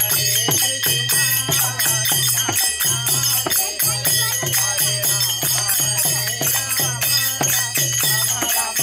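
Kirtan accompaniment: small brass hand cymbals (kartals) ringing and jingling on a quick, steady beat, about two to three strikes a second, with a double-headed barrel drum (mridanga) playing along underneath.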